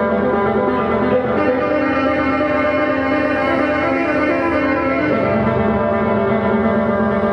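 A band playing live: a dense, steady mass of layered sustained instrument tones, with the lower notes shifting about a second in and again about five seconds in.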